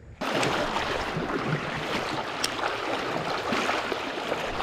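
Steady outdoor rushing noise with a few faint clicks, starting abruptly a moment in.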